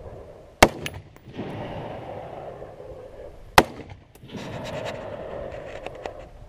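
Two shots from a Sig Sauer 516 Patrol gas-piston AR-15 rifle in 5.56 mm NATO, about three seconds apart, one less than a second in and one about halfway through.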